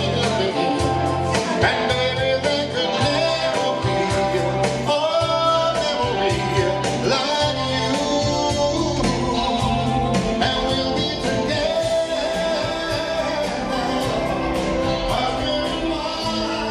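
Live band music through PA speakers: a man singing into a microphone over an instrumental backing.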